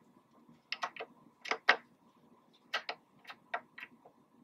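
Ohmeda OmniBed infant bed's rotary control knob clicking as it is turned to dial in the baby's weight: about a dozen short clicks in irregular clusters.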